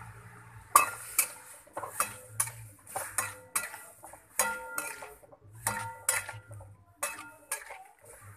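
Spatula stirring potato and tomato pieces in a kadai, knocking and scraping against the pan about twice a second, each knock ringing briefly.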